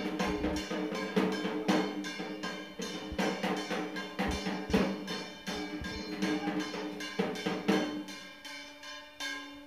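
Hand drum beaten with a stick for dancing, loud strokes at an uneven beat over music with a steady held tone. The strokes thin out and the music fades near the end.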